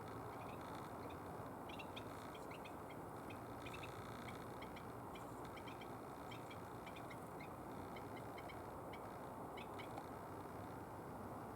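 Small birds chirping in short, high notes, many times over, against a steady low background rumble.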